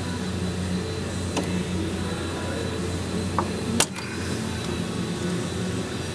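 A steady low mechanical hum, with a few faint clicks and one sharp snap just under four seconds in.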